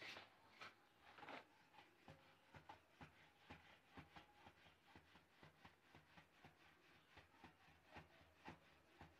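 Faint rolling pin working dough on a wooden rolling board: soft, regular knocks and rubbing, about two to three a second, as an aloo paratha is rolled out.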